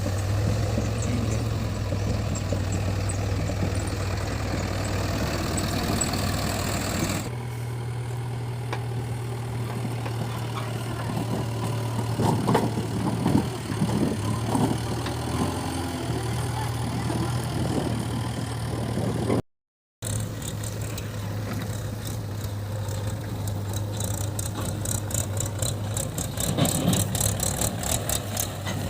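Diesel engines of a backhoe loader and tractor running with a steady low hum. A cluster of knocks comes partway through, the sound changes abruptly where the footage is cut, and it drops out for a moment about two-thirds of the way in.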